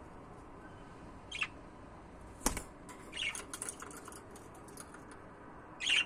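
Budgerigar giving short, high chirps now and then, with a sharp click about two and a half seconds in and a quick run of small chirps and clicks just after it.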